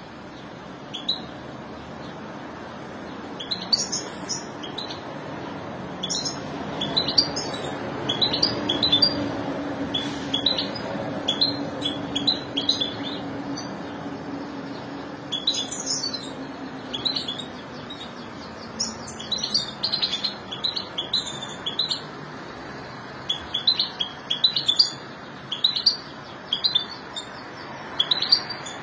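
European goldfinches twittering in short bursts of high chirps that come and go throughout, with a faint steady low hum underneath through the middle.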